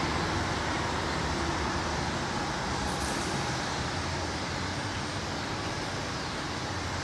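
Steady wash of airport background noise: distant aircraft and road traffic blended into an even rumble and hiss.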